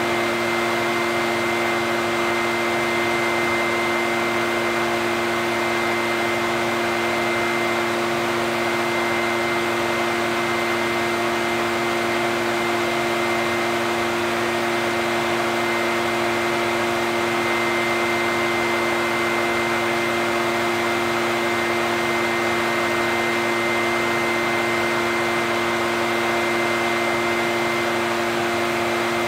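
Echo backpack leaf blower's two-stroke engine running at a constant speed: a steady rush of air with a steady hum and whine of fan and engine tones, unchanging throughout.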